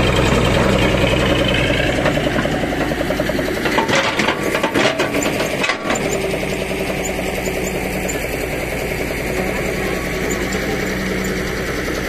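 Caterpillar E140 hydraulic excavator's diesel engine running steadily as the machine digs, with a short spell of clattering knocks near the middle.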